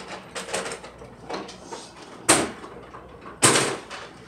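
Two loud sharp knocks a little over a second apart, among fainter scattered clatter and rustling.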